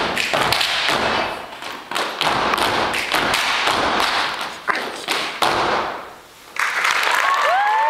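Step team stomping and clapping in sharp rhythmic hits on a stage floor, stopping about five seconds in. About a second later the audience breaks into applause with rising-and-falling whoops and cheers.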